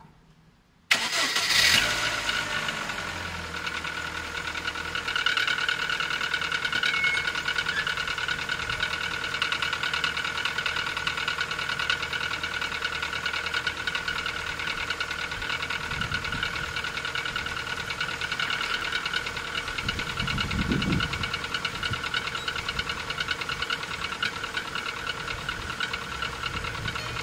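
Rover 25's 1.4 K-Series four-cylinder petrol engine starting from cold: it catches about a second in, runs higher for a moment, then settles to a steady idle with a rapid, even knocking, which the owner takes for cold-start piston slap.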